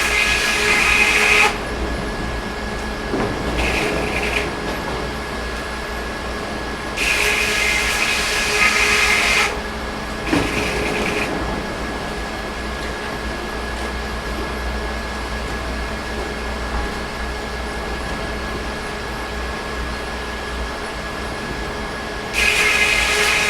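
Sawmill machinery running steadily, broken by about five louder, high-pitched bursts of one to two and a half seconds each: near the start, around 4 s, around 7 to 9 s, around 10 s, and near the end.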